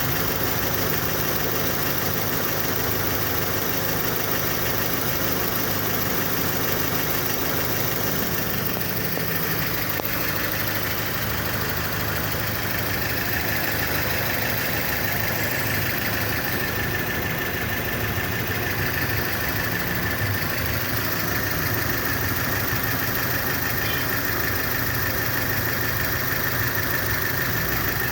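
Kia Sportage engine idling steadily, with a steady high-pitched whine joining it about ten seconds in.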